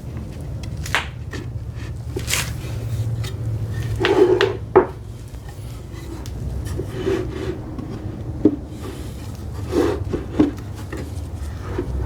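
Wooden cabinet parts being handled and fitted together during a glue-up: scattered wood-on-wood knocks and scraping rubs, the loudest cluster about four seconds in and another near the end.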